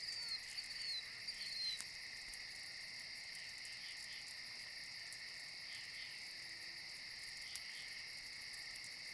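Night chorus of crickets and other insects, a steady high trilling. A few short, high falling chirps sound over it during the first two seconds.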